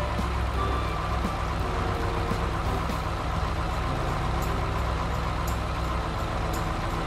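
Truck engine running steadily with a low hum.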